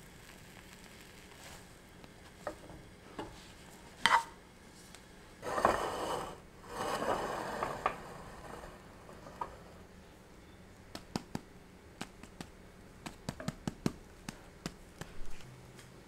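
Plastic and wooden spatulas knocking and scraping against a nonstick frying pan holding a souffle omelette: a few light taps, two longer scraping rustles about midway, then a quick run of small clicks near the end.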